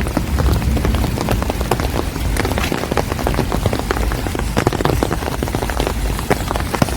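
Steady rain falling on a street, with many close raindrops ticking sharply over a constant hiss.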